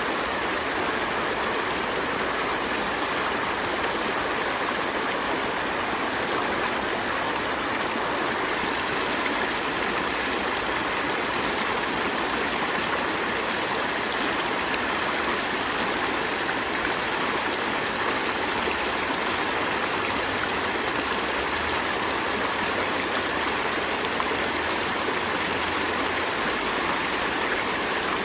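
River stream flowing steadily: an even, continuous rush and babble of running water.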